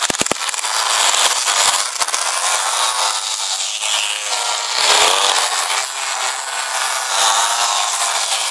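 Several small two-stroke pocketbike engines buzzing at high revs, their pitch dipping and rising again with the throttle about halfway through. A few quick clicks just after the start.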